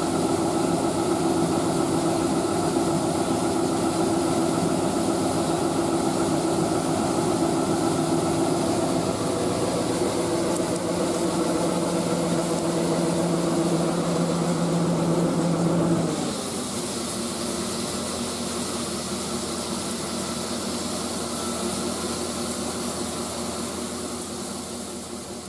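A large diesel harvest machine's engine running steadily. About two-thirds of the way through, the sound changes suddenly: the strong low engine tones drop away, leaving a quieter steady hum with more hiss, and it fades out near the end.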